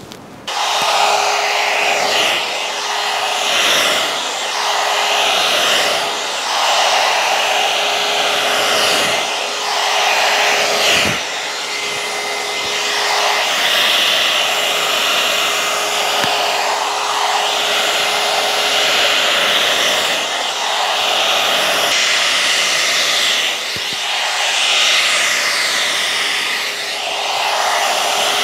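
Alan Truman hot-air blow brush switching on just under a second in and then running: a steady rush of blown air with a faint motor hum. The sound rises and falls every few seconds as the brush is pulled through the hair.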